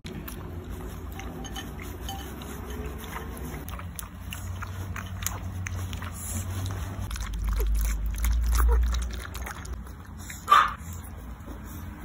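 Pomeranian puppy lapping goat milk from a ceramic bowl: a run of small wet licking clicks, with one short, louder sharp sound near the end.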